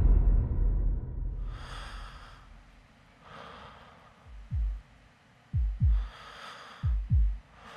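Heavy breathing, a few slow drawn breaths, joined from about four seconds in by a heartbeat sound effect: deep thumps in pairs, roughly one pair a second, louder than the breaths. The tail of a deep musical hit fades out at the start.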